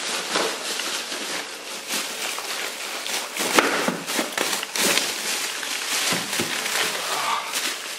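Plastic bags of frozen chicken crinkling and rustling as they are rummaged through and pulled about in a packed freezer, with many short clicks and knocks among them.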